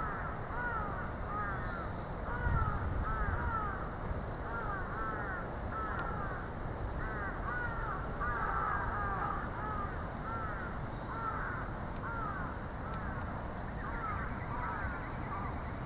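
Birds calling over and over in short rise-and-fall notes, often in quick runs of two to four, over a steady low rumble.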